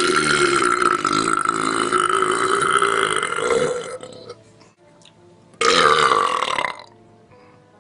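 A man belching loudly after drinking malt liquor: one long drawn-out belch lasting nearly four seconds, then a shorter belch about five and a half seconds in.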